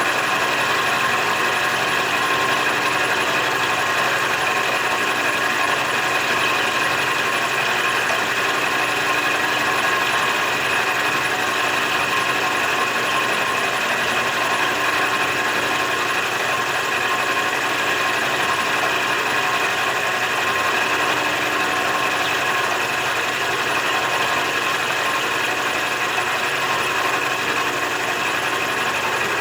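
A metalworking machine tool running steadily, making a constant mechanical whine with several steady tones and no letup.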